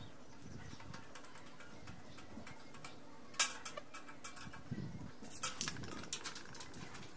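Light metallic clicks and taps as aluminium window-frame profiles and a screwdriver are handled at a corner joint: one sharp click about three and a half seconds in, then a cluster of smaller clicks and knocks toward the end.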